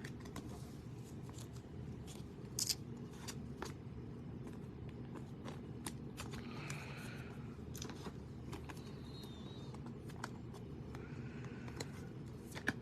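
Trading cards and their packaging being handled: scattered soft clicks and a few brief rustles over a steady low hum.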